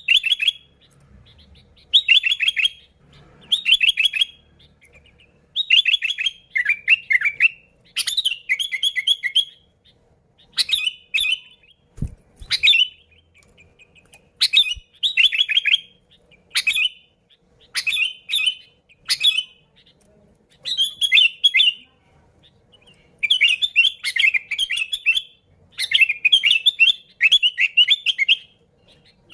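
Sooty-headed bulbul singing energetically: short, bubbly, warbling phrases repeated every second or two with brief pauses between. A single low thump comes about midway.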